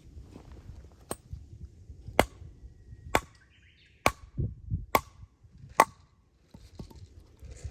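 Chopping with a blade: six sharp strikes about a second apart.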